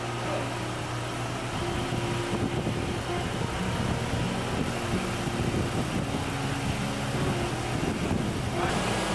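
Tractor engine running steadily, growing slightly louder about a second and a half in, while the front loader holds a suspended load.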